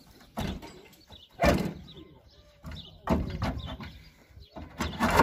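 A handful of metallic clunks and scrapes as a new water pump is worked into place against a Ford 3000 tractor engine block by hand, the loudest about one and a half seconds in.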